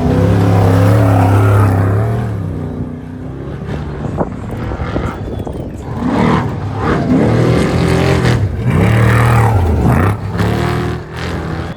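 Off-road race vehicle engines running hard as they go by, their pitch swinging up and down with revving. The engine sound is loudest in the first two seconds and again from about six to ten seconds in.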